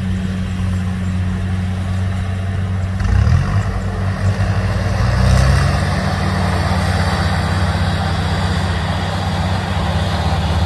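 Kubota DC70 rice combine harvester's diesel engine running steadily as it cuts, with a low even hum; its note shifts and rises between about three and five seconds in.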